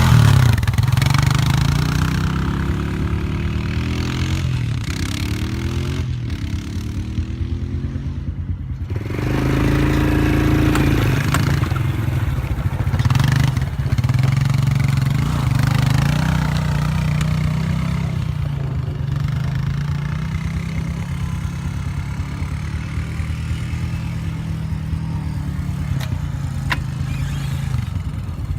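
ATV engine running and revving up and down as it is ridden through mud, its pitch rising and falling, with a heavier low rumble about nine seconds in.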